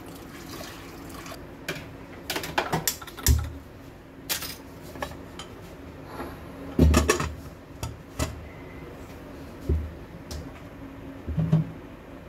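Water poured from a steel jug into an aluminium pressure cooker of soaked dal, then a run of sharp metal clanks and knocks as the cooker is handled on the gas stove and its lid is fitted, the loudest about seven seconds in.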